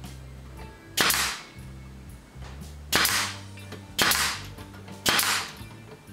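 Pneumatic pin nailer firing four times, about a second apart, driving pins into the plywood panels of a box housing; each shot is a sharp bang that fades within a fraction of a second.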